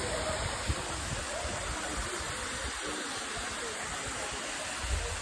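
Waterfall rushing, a steady even hiss of falling water, with a few low rumbles near the end.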